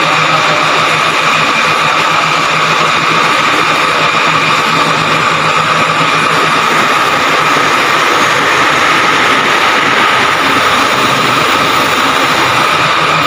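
Lifting machinery running steadily while lowering a stack of mild steel plates: a constant whine over a low engine hum, with no clanks of metal.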